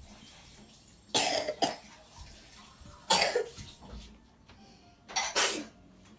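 A person coughing in three short bursts, the first a quick double cough, about two seconds apart.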